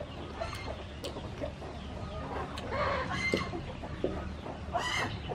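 Chickens clucking, with a few short calls about three seconds in and another near the end.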